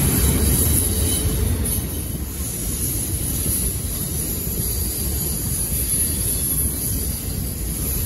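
Intermodal freight cars rolling past: a steady rumble of steel wheels on rail that eases slightly about two seconds in.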